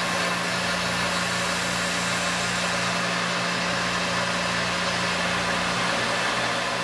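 Tormach CNC mill's spindle running with a small end mill cutting a metal part, a steady hum with an even hiss over it.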